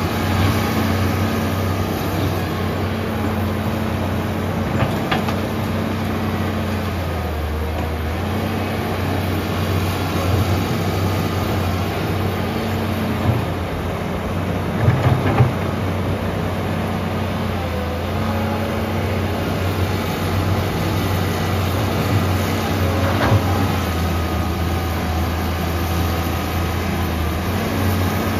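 Komatsu PC150-5 excavator's diesel engine running steadily while it works, its pitch dipping briefly several times, with a few knocks, the loudest a little past the middle.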